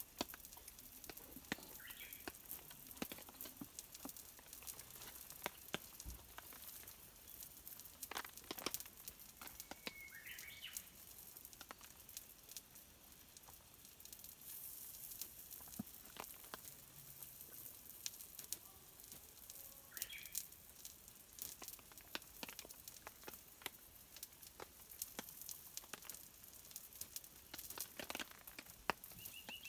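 Faint crackling and popping from a wood campfire, scattered irregular clicks, with a few short bird chirps.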